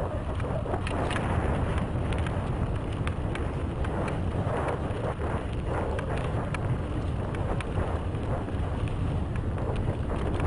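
Mountain bike descending a dry dirt trail at speed: wind rushing over the microphone and tyres running over dirt, with frequent sharp clicks and rattles from the bike jolting over bumps.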